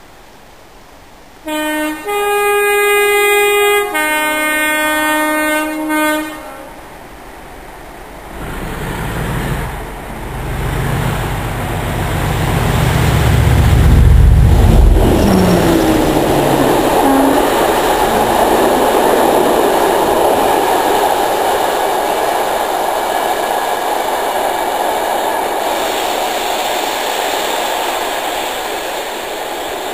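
A Class 97/3 diesel locomotive sounds its multi-tone horn in two blasts, the second on a different chord, then comes up under power and passes close by. Its English Electric V12 engine builds to a heavy low rumble, loudest about halfway through, and is followed by the steady rumble and clatter of the test train's wheels on the rails as it draws away.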